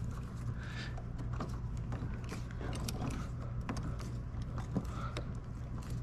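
Screw and nut being hand-tightened through a plastic bowling-lane bumper with a screwdriver and wrench: scattered small clicks and creaks of tool, metal and plastic, over a steady low hum.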